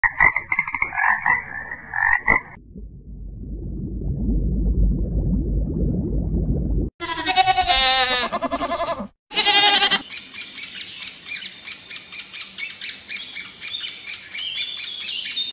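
A run of short animal-call clips cut one after another. First comes a pulsing pitched call, then a low rumbling noise, then a long wavering pitched call and a shorter one. About ten seconds in, rapid high chirping takes over.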